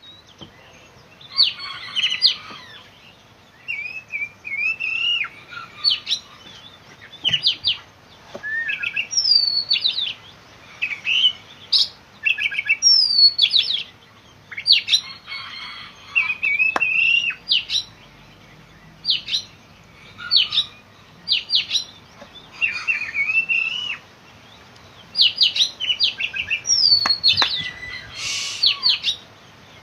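Oriental magpie-robin (kacer) in full song: a varied string of loud, high whistled phrases with slurred rising and falling notes and quick trills, coming in bursts with short pauses between.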